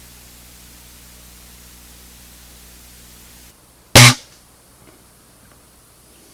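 A single sharp shot from a Norica 56 4.5 mm spring air rifle about four seconds in, after a faint steady hum that stops just before it.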